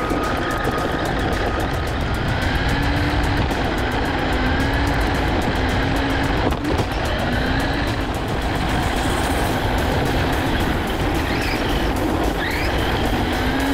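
Small electric RC rally car heard from a camera mounted on it: the motor's whine rising in pitch again and again with bursts of throttle, over a steady rumble of the tyres on mulch and concrete. There is one sharp knock about six and a half seconds in.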